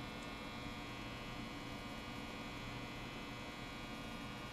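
Steady electrical hum, a constant low drone with a higher buzz over it that does not change.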